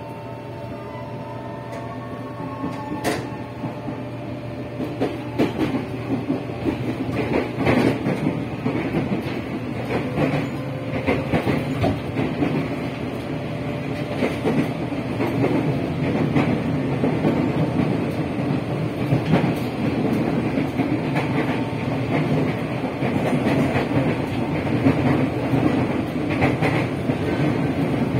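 Ex-Tokyo Metro 05 series chopper-controlled electric train heard from on board as it pulls away and accelerates: running noise builds steadily, with wheel clicks over rail joints.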